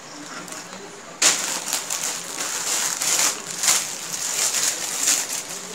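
Clear plastic clothing packaging crinkling and rustling as it is handled, starting suddenly about a second in and going on in irregular loud crackles.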